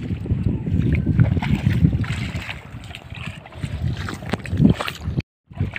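Wind buffeting the microphone, with the splashing steps of someone wading through shallow floodwater in flip-flops. The sound drops out briefly near the end.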